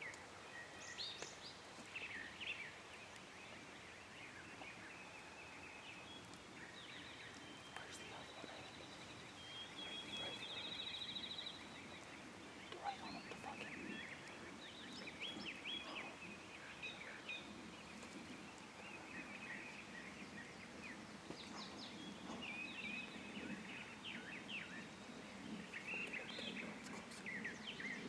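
Small birds chirping and calling in short, scattered phrases, with a buzzy trill about ten seconds in, faint over a low hiss of outdoor background noise.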